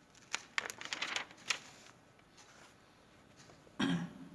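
Soft clicks and rustles in a quick run during the first second and a half, then a short, low, voice-like sound near the end.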